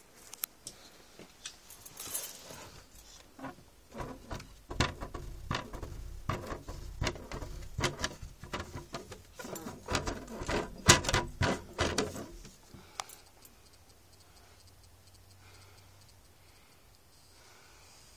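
Plastic cat flap clattering as it is pushed open and swings against its frame: a rapid, irregular run of clicks and knocks that goes quiet about two-thirds of the way through.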